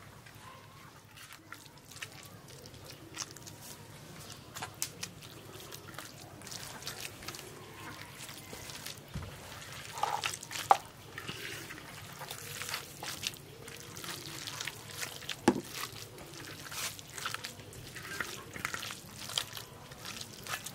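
Wet squelching and irregular small clicks of cooked fish and vegetables being mashed and mixed together by hand for a bhorta.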